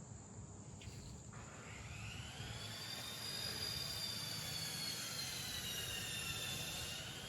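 An aircraft passing overhead: an engine drone that swells, with high tones slowly bending in pitch.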